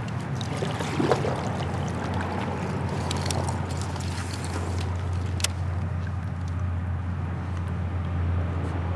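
Water sloshing around a kayak over a steady low rumble, with a brief rising swish about a second in and a few sharp clicks from handled fishing gear.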